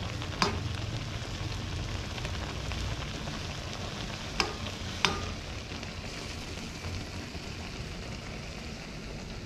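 Noodles frying in a pan with a steady sizzle. Three sharp knocks come through it, the first about half a second in and two more close together near the middle.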